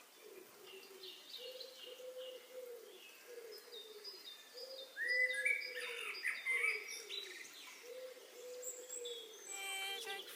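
Birds calling: a steady run of low, arched cooing notes, about two a second, with higher chirps and twitters over them that get louder about halfway through.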